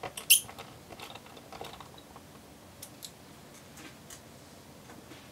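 Light clicks and taps of fingers handling the aluminium base panel of a laptop. Two sharper clicks come in the first half second, followed by scattered faint ticks.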